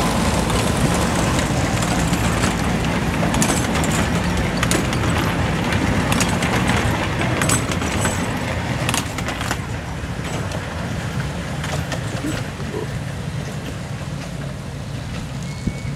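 Diesel engine of a miniature park railroad locomotive running steadily as the train pulls past, with clicks and rattles from the cars on the track. It grows fainter as the train moves away.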